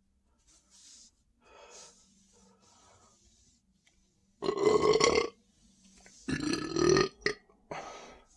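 A person burping up the gas from a carbonated soft drink (Sprite): two long, loud, pitched belches of about a second each, a second apart, then a shorter, weaker one near the end.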